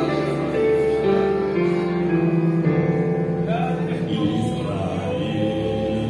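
Mixed choir of men's and women's voices singing held chords in several parts, the notes changing every second or so.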